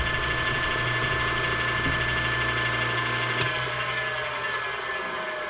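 Electric dental lathe motor running with a cloth buffing wheel spinning on its tapered spindle, a steady hum with a whine. A click about three and a half seconds in, then the whine falls steadily in pitch as the motor coasts down.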